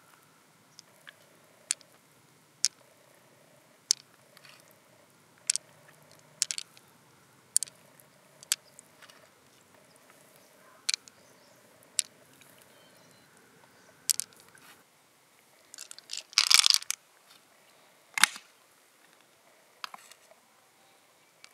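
Small hard pearls clicking against each other in a palm and against the mussel shell as they are picked out: single sharp clicks about once a second, with a louder crunching cluster about two-thirds of the way through.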